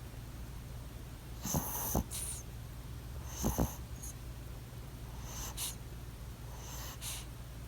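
Dog snoring in its sleep, with a noisy breath about every one and a half to two seconds.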